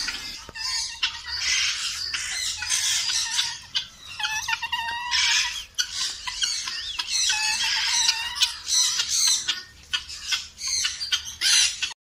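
Many birds squawking and calling at once: harsh, high-pitched calls overlapping in dense, repeated bursts, a busy aviary chorus.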